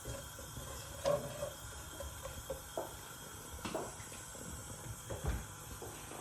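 Chopped onion starting to fry in a little vegetable oil in a cooking pot, a faint steady sizzle, with scattered light knocks and one louder thump about five seconds in.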